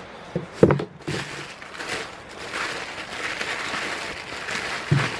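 Bubble wrap and packing material rustling and crinkling as a stove is pulled out of its wrapping, with a short knock about half a second in and another near the end.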